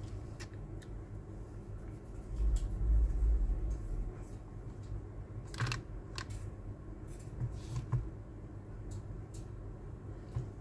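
Light clicks and taps of a Samsung Galaxy Tab S2's glass display and frame being handled on a silicone repair mat, scattered through the second half, over a steady low hum. A low rumble from about two to four seconds in.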